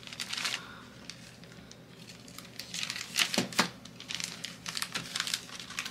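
Clear plastic bag crinkling as it is handled and folded, in short spells at the start and again from about three seconds in.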